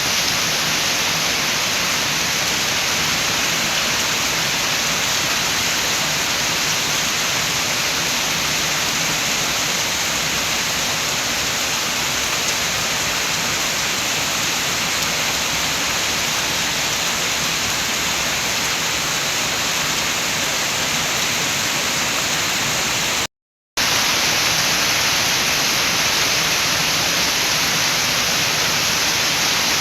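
Steady, continuous rain with wind, an even hiss with no let-up. It cuts out to silence for a split second about three-quarters of the way through, then resumes.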